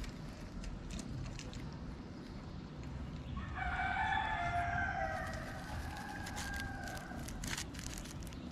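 A rooster crowing once, a single long call of about three and a half seconds that starts near the middle, over faint street background noise.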